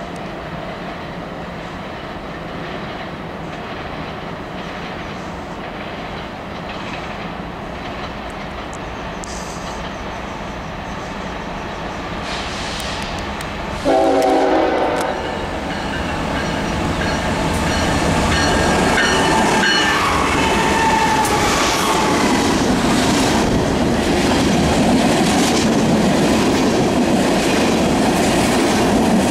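Freight train of diesel locomotives and tank cars running by. About halfway through, a locomotive air horn sounds one chord for about a second and a half, and after that the tank cars pass close with a steady clickety-clack of wheels over rail joints, growing louder.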